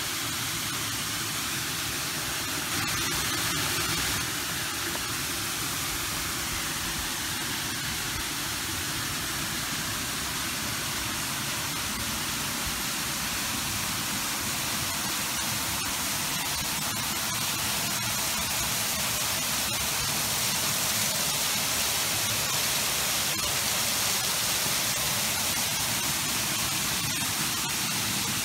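Steady rushing hiss with no distinct events, a little louder for about a second some three seconds in and again through the second half.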